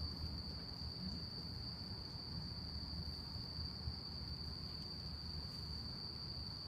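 A chorus of night insects singing in one steady, high-pitched, unbroken tone, over a faint low background rumble.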